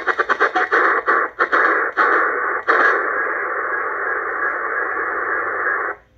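ATS-25 DSP shortwave receiver's speaker in upper sideband. It gives choppy hiss as it is tuned step by step, the audio muting on each step, then settles about three seconds in on a steady data signal, a NATO Link 11 transmission. The audio drops out just before the end as the volume is turned down.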